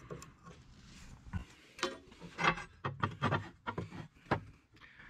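Handling of a rusty steel leaf spring: a scatter of short, irregular scrapes and taps, as of a knife tip and the leaf moving against each other.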